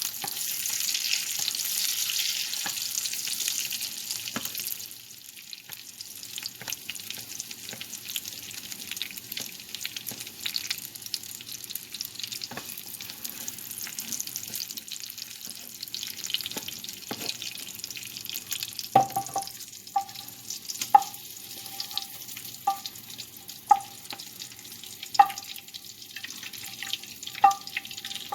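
Meatballs sizzling in hot oil in a frying pan, loudest for the first four seconds, then quieter with scattered clicks as they are moved. Near the end a metal utensil clinks against the pan about eight times, a second or so apart, each strike ringing briefly.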